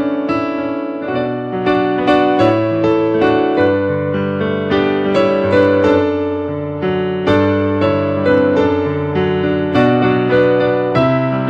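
Piano playing a slow, gentle instrumental piece: chords under a melody, new notes struck about twice a second and left to ring.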